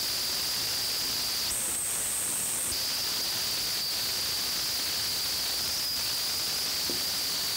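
Steady hiss with a constant thin high-pitched whine; the whine jumps higher for about a second near the start, then drops back.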